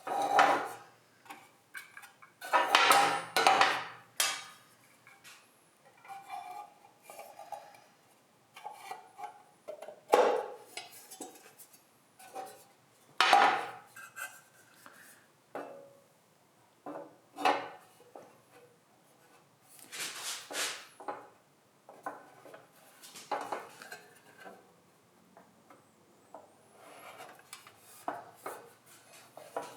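Metal parts clinking, clattering and scraping as they are handled, in irregular bursts a second or a few seconds apart with quiet in between.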